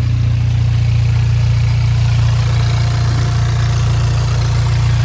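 Volkswagen Golf R's turbocharged four-cylinder engine idling steadily on its first startup after the turbo was reinstalled with new oil-line seals.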